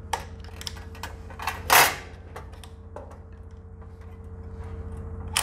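Screwdriver working a lock fastener on a metal floor box cover: a few small clicks and scrapes of metal, with one louder clatter about two seconds in. A steady low hum runs underneath.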